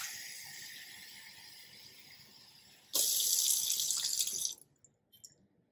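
Kitchen faucet running into a glass measuring cup. The water hiss fades over the first few seconds, then comes back louder for about a second and a half and stops suddenly as the tap shuts off.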